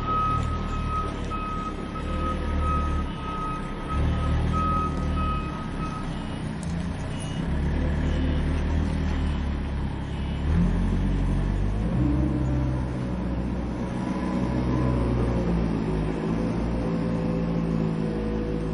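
Forklift reverse alarm beeping a single repeated tone over the forklift's running engine; the beeping stops about six seconds in, and the engine keeps running, rising and falling in pitch as the truck moves.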